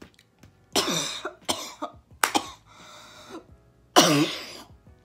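A woman coughing and gagging after swallowing a gnat: a run of harsh coughs and throat-clearing hacks. The loudest is a voiced retching cough about four seconds in.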